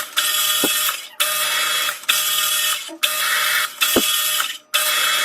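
Metal lathe cutting an external thread in old steel: a harsh, hissing cutting noise in repeated bursts about a second long, each starting and stopping abruptly, with a steady hum beneath.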